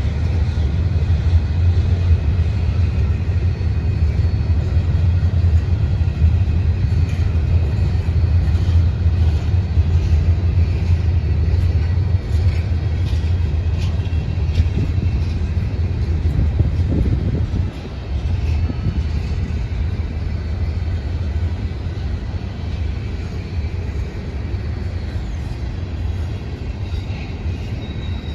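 A long freight train's cars rolling past with a steady, loud low rumble, and a few faint clicks from the wheels in the middle stretch.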